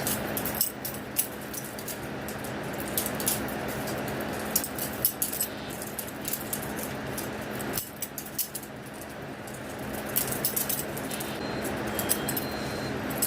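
Butterfly knife (balisong) being flipped: its handles and blade click and clack irregularly against each other, many sharp metallic clicks over a steady hum.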